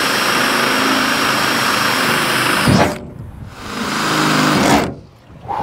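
Cordless DeWalt 20V drill running steadily as a larger bit bores through the van's sheet-metal wall. It stops about three seconds in, then spins up again for about a second and a half before stopping.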